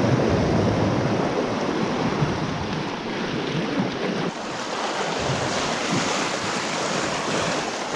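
Sea waves washing and breaking over rocks, with wind buffeting the microphone as a low rumble that eases about halfway through.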